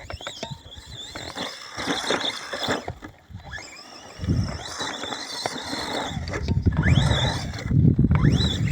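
Remo Hobby EX3 RC short course truck driving off-road: its electric motor whines, rising and falling in pitch as the throttle changes, over the rough rush of tyres on dirt.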